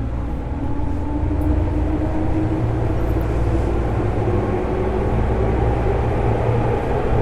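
JR 205 series electric train motor car with MT61 external-fan traction motors, running with a steady rumble under a motor whine that rises slowly in pitch as the train gathers speed.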